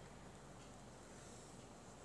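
Near silence: faint room tone with a low steady hiss.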